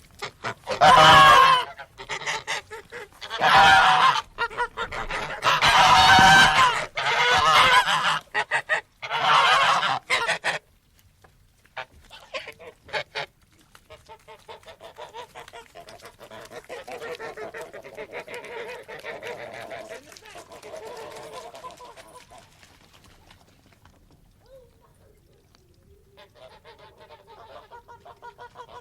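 Geese honking: a run of loud calls for about the first ten seconds, then softer, overlapping honking and chatter that fades, with faint calls again near the end.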